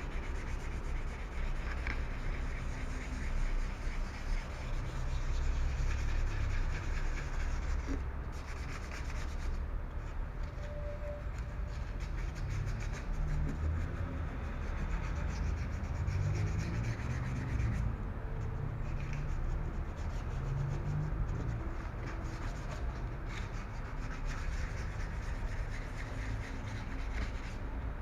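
Sandpaper rubbing back and forth against a car's painted body panel, sanding down a spot where the paint has flaked off, in quick repeated strokes.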